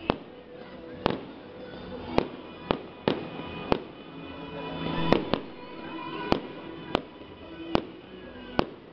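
Aerial fireworks going off: about a dozen sharp bangs at uneven intervals, mostly under a second apart, with music playing underneath.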